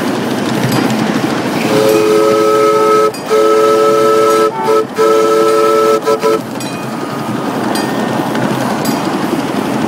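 Chime whistle on the live-steam scale model of Frisco 1042 sounding a chord in several blasts, from about two seconds in until past six seconds: two long blasts, then shorter toots and one more long one. Under it is a steady rushing running noise from the moving locomotive on the track.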